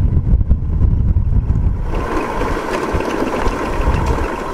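Motorcycle running over a rough road with wind rumbling on the microphone. About two seconds in the rumble drops as the bike slows, and the engine's steady hum comes through more plainly.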